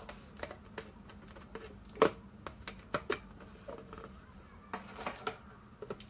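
Unboxing handling noise: irregular clicks, taps and light rustles as a neckband earphone's cable and earbuds are pulled out of their moulded packaging tray, with the sharpest knock about two seconds in.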